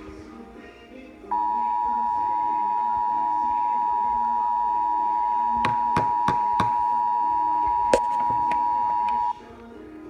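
Emergency Alert System two-tone attention signal, the 853 Hz and 960 Hz tones sounding together. It comes in loud and steady about a second in and holds for about eight seconds before cutting off, with a few sharp clicks over it in the second half. It is the alert that heralds the emergency voice message.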